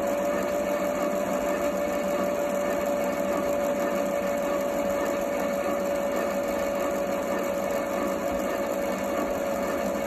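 Keenway My Home toy washing machine running a wash cycle with its drum turning: a loud, steady whirring with one held tone over it.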